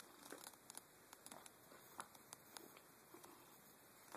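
Near silence: room tone with a few faint, scattered soft clicks.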